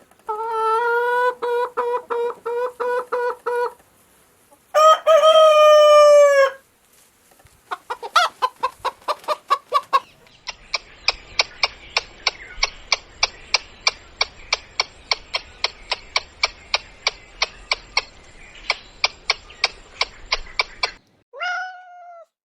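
Chickens calling in a run of short clips: a series of pitched calls and a rooster-like crow with a falling end, then a long steady run of clucks about three a second. A short falling call comes near the end.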